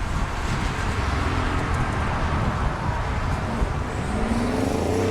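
Car engine running as a car pulls out, rising in pitch near the end as it is revved and accelerates away.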